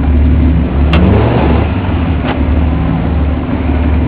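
Truck engines running and revving under load as a Toyota 4Runner pulls a high-centered Ford Ranger pickup off a gravel mound, with a steady low rumble that climbs in pitch about a second in. Two sharp knocks, about a second and a half apart, cut through it.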